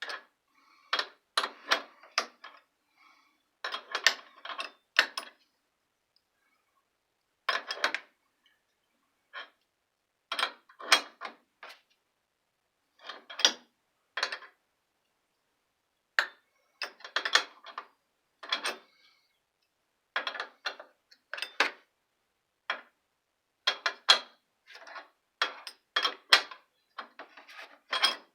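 Adjustable wrench clicking and clinking against metal shower valve fittings in irregular clusters of short sharp clicks with pauses between them, as a part is tightened on its thread.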